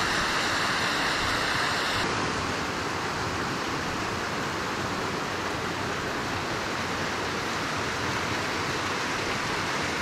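Steady rush of a mountain stream cascading over a small waterfall and rocks. About two seconds in, the sound turns a little less hissy and stays even after that.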